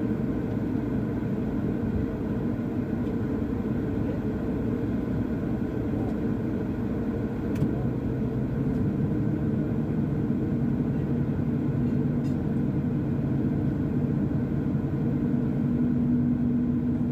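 Wheeled excavator's diesel engine running steadily in a low rumble, its hum growing stronger over the second half.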